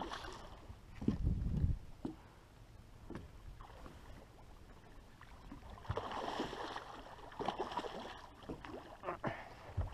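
A hooked fish splashing and thrashing at the water's surface beside a small boat as it is played in, with the loudest splashy bursts about six and eight seconds in. A low thump on the microphone comes about a second in.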